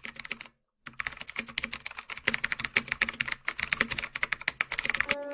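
Scattered hand clapping from a small group in a room: rapid, irregular sharp claps that start a little under a second in, after a brief break in the sound, and stop shortly before the end.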